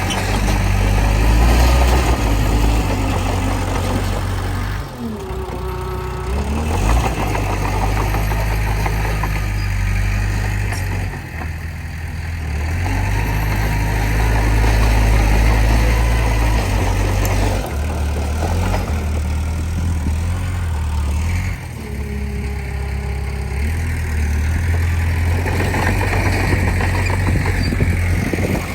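Komatsu D20P bulldozer's diesel engine working, its note rising and falling with the load as it pushes soil. A short whine glides through twice.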